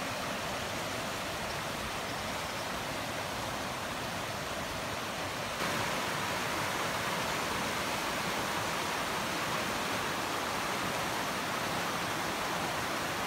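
Hat Creek's water running: a steady hiss of flowing creek water that gets a little louder and brighter about five and a half seconds in.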